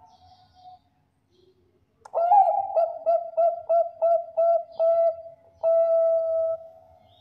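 Perkutut bangkok (a Bangkok-type zebra dove) singing: about two seconds in, a series of about eight short coos at roughly three a second, ending in one longer held coo. A faint cooing note sounds just before the series.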